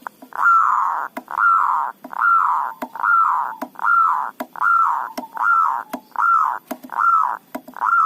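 Zebra dove (perkutut) cooing loudly: a string of about ten rounded coo notes, each rising then falling, a little over one a second, with faint sharp clicks between the notes.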